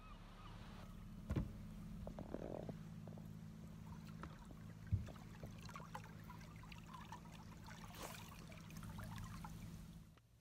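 Faint, steady low hum of a boat's idling motor, with a few light knocks and clicks over it. The hum cuts off abruptly near the end.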